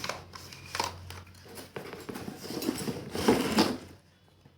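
Rustling and clicking of a plastic tool case and its packed contents being handled during unpacking, loudest a little past three seconds in and stopping about four seconds in.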